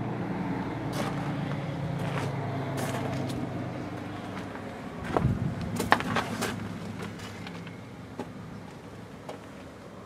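New Holland C232 compact track loader's diesel engine idling with a steady low hum that grows fainter in the second half. Scattered crunching steps on gravel, the loudest about five to six seconds in.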